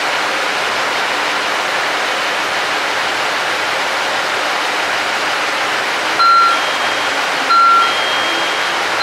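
KiHa 85 series diesel railcar's Cummins diesel engines running at idle: a steady rushing noise. About six seconds in, and again just over a second later, two short high beeps sound over it.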